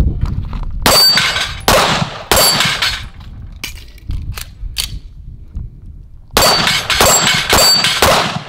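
Pistol fire at steel targets: a quick string of three shots, a pause with a few fainter knocks, then a string of four shots. Each hit rings off the steel plates as they are knocked down.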